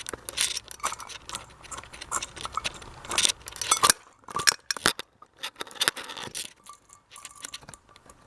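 Irregular small metallic clicks and rattles from a ceiling fan pull-chain switch being handled and pulled, its bead chain jangling, as its switch positions are tested.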